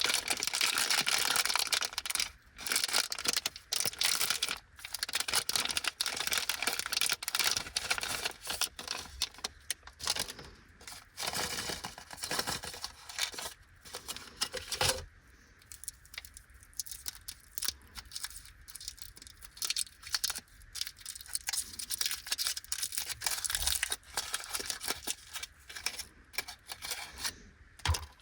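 Glico Petit-cu chocolate packaging being torn open and crinkled: dense rustling for about the first half, then sparser crackles and small clicks.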